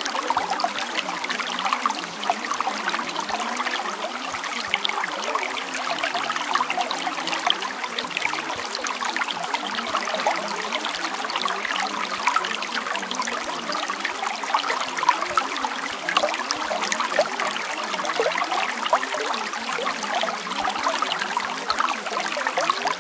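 Running water trickling and babbling steadily, like a small stream, with many small splashy ticks.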